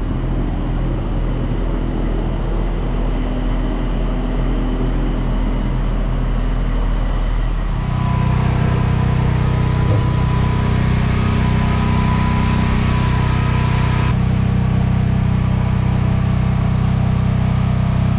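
A steady machine drone that shifts to a lower, louder hum about eight seconds in, with a thin high whine for several seconds after the change.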